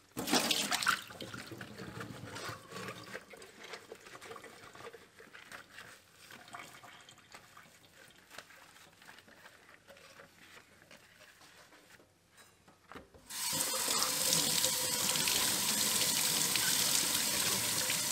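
Leftover drink splashes as it is poured from a glass into a stainless steel sink, followed by quieter rubbing and handling as the glass is scrubbed with a sponge. About 13 seconds in, the kitchen faucet is turned on and water runs steadily over the glass into the sink.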